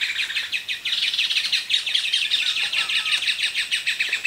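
A dense chorus of birds chirping rapidly and without a break, with a few lower, slurred whistled notes a little past the middle.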